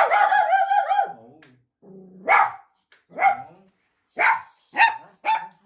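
A pet dog barking: one drawn-out bark at the start, then five short barks about a second apart.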